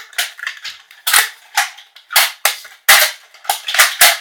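Toy foam-dart blasters being primed and fired: a quick, uneven series of about a dozen sharp plastic clacks.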